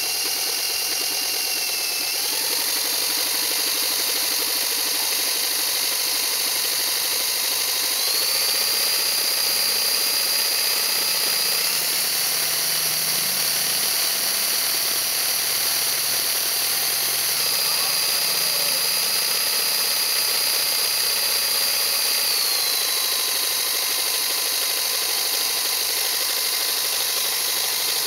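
HO-scale GP-38 model locomotive's small electric motor whining steadily. Its pitch steps up a few times through the first half and drops back about two-thirds of the way through as the power changes.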